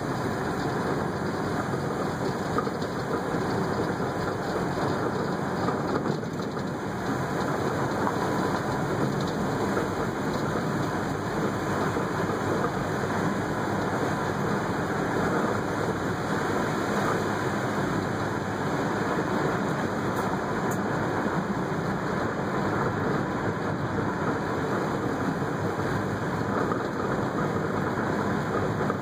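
Steady road noise heard inside the cabin of a 1978 Ford Fairmont station wagon driving on a gravel road: tyres rolling over gravel, with the engine running underneath.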